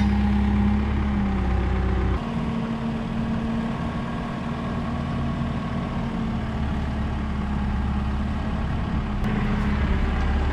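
Engine of a lifting machine running steadily while it raises a load. Its note shifts suddenly about two seconds in, then holds steady.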